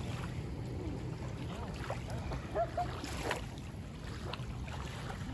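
Steady low outdoor rumble of wind on the microphone over open lake water, with faint distant voices and a brief louder noise about three seconds in.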